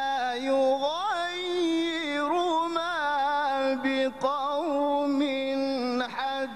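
A male qari reciting the Qur'an in melodic tajwid style, drawing out long vowels with ornamented turns in pitch. The singing breaks off briefly twice in the second half.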